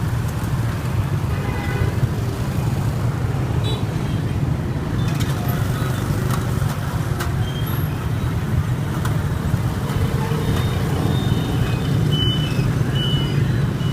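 Steady road and wind rumble from riding on a motorbike through city traffic, with a few short, faint high tones in the second half.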